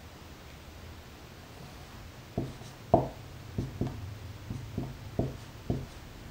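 Dry-erase marker writing on a whiteboard: about ten short taps of the marker tip at roughly two a second, starting about two seconds in, as letters are written.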